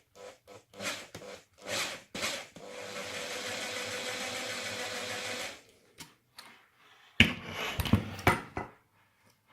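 Electric drill drilling out the rivets of a die-cast toy car: a few short bursts, then a steady run of about three seconds. Near the end come several loud sharp knocks.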